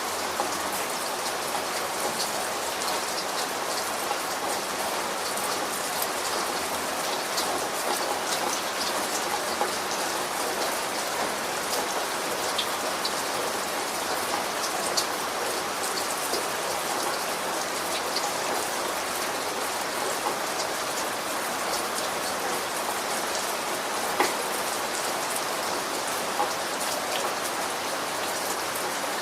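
Steady rain falling, a dense even patter of drops with many small individual ticks and an occasional louder drop.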